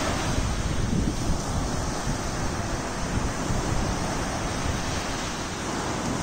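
Sea waves breaking and washing up a sandy beach, a steady surf noise, with wind buffeting the microphone.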